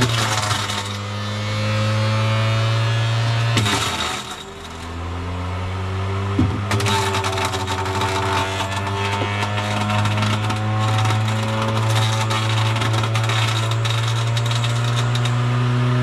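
Electric fruit crusher running with a steady motor hum while apples are fed in, the pieces rattling and clattering inside. About four seconds in the motor slows and drops in pitch under the load, then speeds back up.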